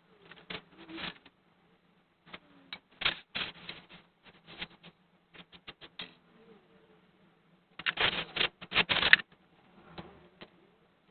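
Small metal carburettor parts and hand tools clicking and clattering as they are handled, in irregular taps with a denser, louder run of clatter near the end.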